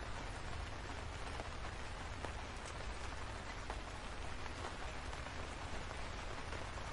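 Steady rain, an even hiss with a few faint, scattered drop ticks.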